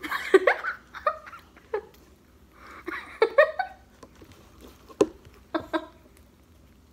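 Girls giggling in short bursts with quiet gaps between, and one sharp tap about five seconds in.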